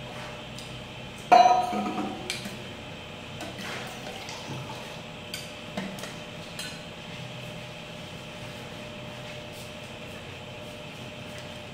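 Someone eating, with small chewing and mouth clicks, and one sharp clink of tableware about a second in that rings briefly.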